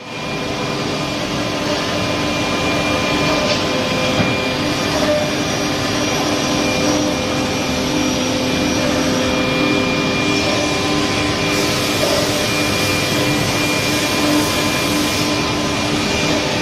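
Four-head woodworking CNC drilling and cutting machine running: a loud, steady machine noise with several held whining tones from its spindles and motors. A brighter, hissier edge comes in for a few seconds in the second half.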